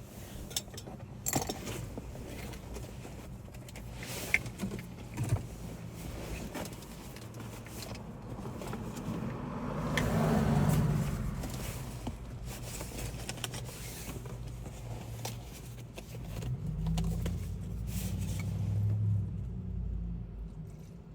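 Handling and tool noises: scattered clicks and taps, with a swell of rustling noise about halfway through and a longer low rumble near the end.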